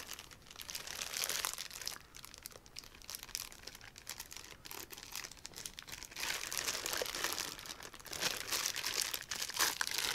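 Clear plastic bag crinkling as it is handled and pulled open, in irregular bursts that get louder from about six seconds in.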